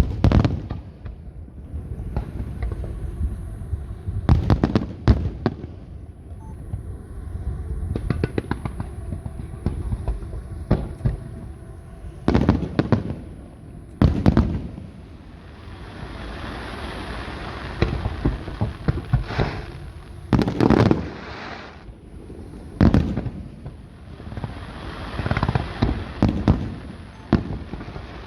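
Aerial fireworks shells bursting overhead at irregular intervals: a dozen or so sharp booms, each with a rumbling tail.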